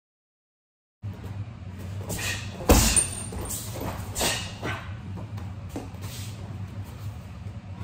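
About a second of silence, then a combination of hand strikes landing on a Versys freestanding vinyl striking dummy: a string of sharp slaps and thuds, the loudest about three seconds in, over a steady low hum.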